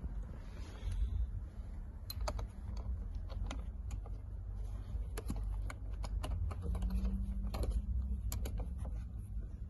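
Scattered sharp clicks, about fifteen at irregular intervals, with rubbing and handling noise, as a screw under the steering column is started and tightened.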